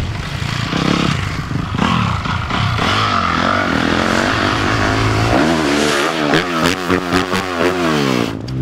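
Motocross bike engine revving hard on the run-up to a ramp. In the last three seconds its pitch falls steadily as the bike takes off and flies through the air.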